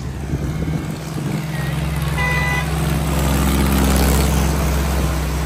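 Vehicle engine running under load, growing louder through the middle, with a short horn toot a little over two seconds in.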